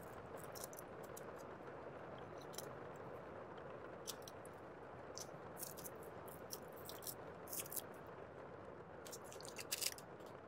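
Paper-wrapped bandage packets crinkling and rustling as they are handled and packed into a small metal first aid tin, with scattered light clicks and a busier flurry near the end, over a steady background hiss.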